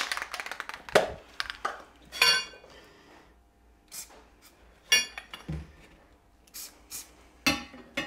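Galvanised steel conduit and hand tools being handled on a workbench: a series of separate metallic clinks and knocks, several with a short ring.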